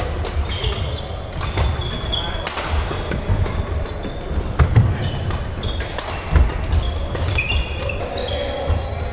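Badminton rally: sharp racket strikes on the shuttlecock, shoes squeaking on the court floor in short high chirps, and dull thumps of footsteps, the loudest thumps near the middle.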